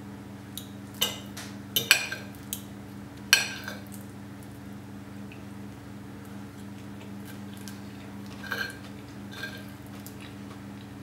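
A metal knife and fork clinking and scraping against a plate while cutting food: a cluster of sharp clinks in the first few seconds and a couple more near the end, over a steady low hum.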